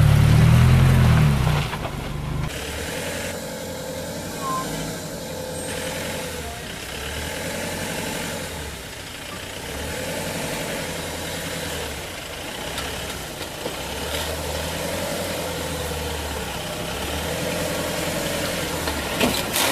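A Mitsubishi L300 4WD van's engine running loud and close for the first two seconds or so. It then gives way to the quieter diesel engine of an Iveco EarthCruiser truck crawling over rocks and mud, its pitch rising and falling in slow swells.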